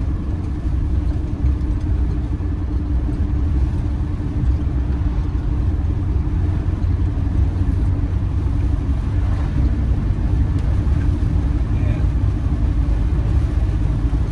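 Campervan's engine and road noise heard from inside the cab while cruising steadily, a constant low drone with an even hum.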